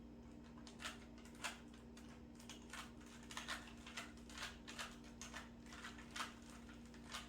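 Faint plastic clicks of a 3x3 Rubik's cube's layers being turned, in quick irregular runs, over a steady low electrical hum.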